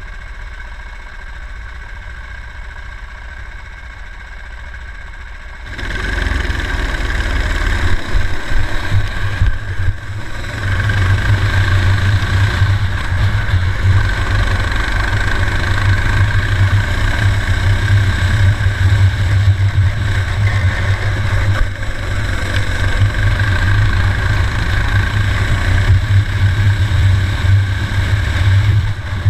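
Onboard sound of a four-stroke racing kart engine. It runs at low throttle for the first few seconds on the start straight, then goes to full throttle about six seconds in at the race start. After a brief lift around ten seconds in, it runs hard and steady.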